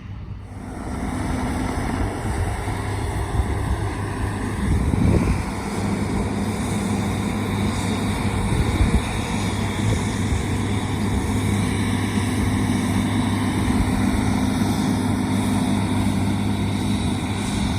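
John Deere S Series combine harvester running steadily while harvesting wheat: a constant low engine drone under the whir of the threshing machinery, swelling briefly about five seconds in.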